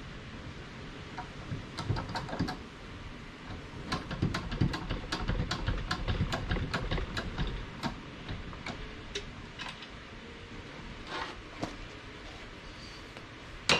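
Hand-pumped hydraulic terminal crimper being worked to crimp a terminal onto a battery cable: a run of regular clicks, about three a second, as the handle is pumped. A louder single knock comes right at the end.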